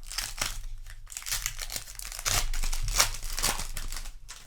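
Foil booster-pack wrapper crinkling in the hands, with tearing sounds as it is handled and opened.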